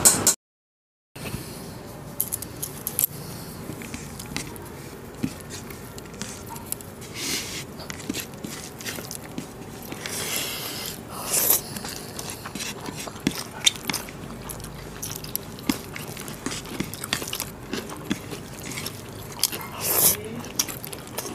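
Close-up eating sounds of two people eating rice and mutton curry with their hands: chewing and biting, with many short wet clicks and a few louder bursts. It starts after about a second of silence.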